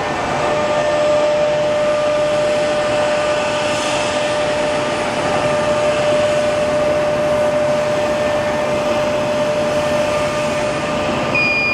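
Large CNC laser cutting machine running: a steady rushing, blower-like noise with a steady mid-pitched hum. A high-pitched beep starts near the end.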